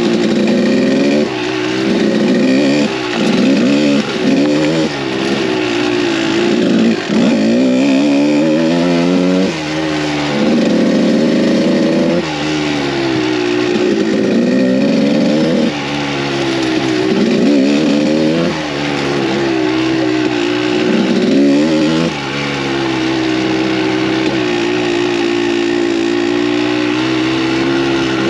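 Kawasaki KDX200 two-stroke single-cylinder dirt bike engine, revving up and dropping back every one to three seconds as the throttle is worked, then holding a steadier pitch for the last several seconds.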